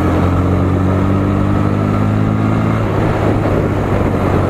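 Bajaj Pulsar NS 125's single-cylinder engine running at a steady pace under way, a low even drone whose upper notes fade out about three seconds in.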